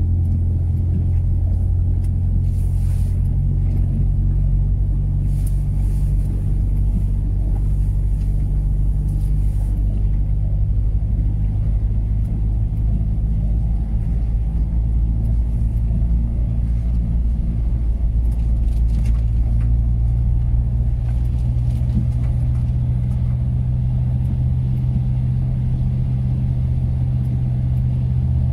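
Land Rover Freelander 1 TD4's four-cylinder turbodiesel running with a steady low drone, heard from inside the cabin, while wading through deep floodwater. Water splashes and sloshes against the car during the first ten seconds or so, then only the engine and tyres on the wet road remain.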